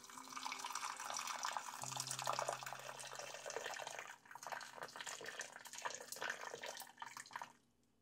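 Water running from a tap into a sink in a steady splashing stream, which stops near the end.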